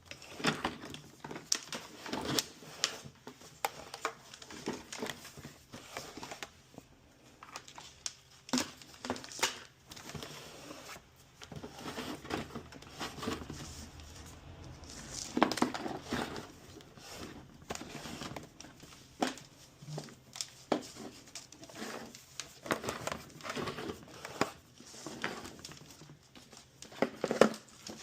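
Plastic resin tank being spun and threaded onto its control valve by hand: irregular clicks, scrapes and rustling of hard plastic parts rubbing and knocking together.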